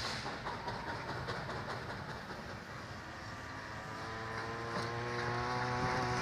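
Steam locomotive running along the track, with rail noise and steam hiss. About three seconds in, a low held whistle joins, rising slightly in pitch until the end.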